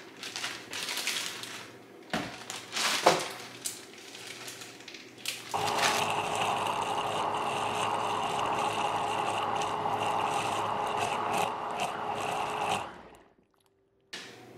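A plastic bag rustling and frozen banana chunks knocking into a plastic blender jar, then about five and a half seconds in a countertop blender starts and runs at a steady high speed with a constant whine, pureeing frozen fruit and spinach into a smoothie. The blender stops shortly before the end.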